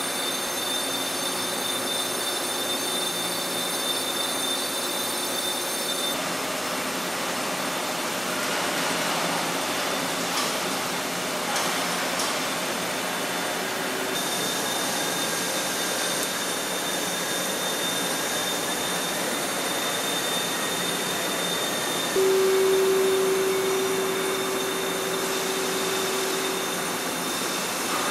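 Hwacheon T-REX 210 CNC lathe hard-turning a hardened HRC62 steel shaft on a light super-finishing pass: steady spindle and cutting noise with high, steady whining tones. The sound changes abruptly about six seconds in and again about fourteen seconds in. A louder steady hum stands out for about five seconds, starting about two-thirds of the way through.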